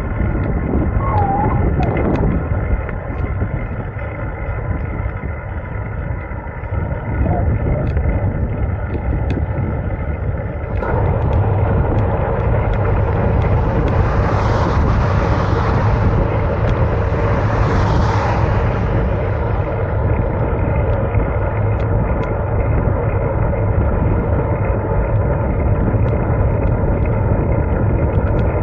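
Motorcycle under way, its engine running at a steady pace under a wash of wind and road noise. About ten seconds in it grows louder and noisier, with two brief hissing swells a few seconds apart.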